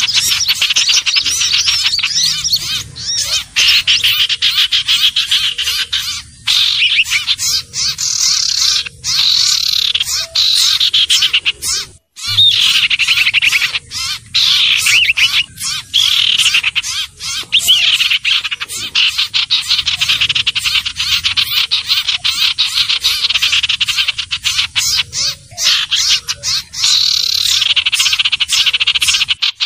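Lure recording of a sirtu/cipoh (common iora) calling: a fast, high-pitched rattling trill that runs almost without a break, with a few brief pauses.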